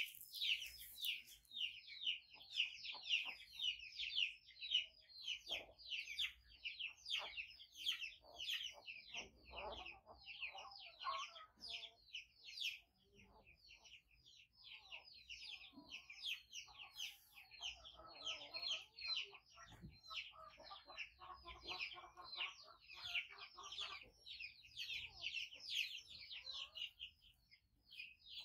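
Continuous rapid, high-pitched peeping from young animals: short falling squeaks, several a second, with some softer, lower calls around ten and again around twenty seconds in.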